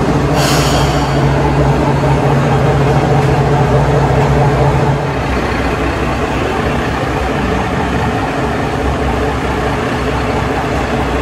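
Hisatsu Orange Railway diesel railcar standing with its engine idling, a steady low drone that eases slightly about five seconds in. A brief hiss of air about half a second in.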